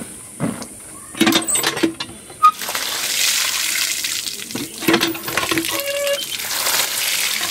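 Water gushing from a hand-operated tubewell pump over black plums (jamun) in a plastic colander as the fruit is washed. A few knocks as the pump handle is worked in the first two seconds or so, then a steady pour of water from about three seconds in.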